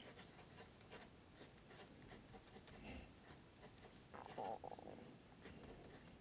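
Faint scratching of a mechanical pencil's 0.5 mm HB lead on paper during writing, with a slightly louder stretch of strokes about four seconds in.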